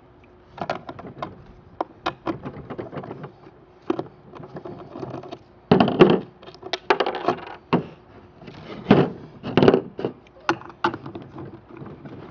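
Skateboard wheels and truck parts being handled during a quick-release wheel change: a run of irregular clicks and knocks, with a few louder clunks around the middle and again a few seconds later.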